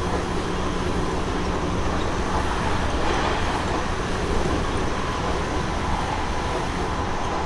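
Onboard running noise of a Seibu 30000 series later-batch electric train with Hitachi two-level IGBT VVVF drive: a steady rolling rumble of wheels on rail at speed, with a faint steady tone above it.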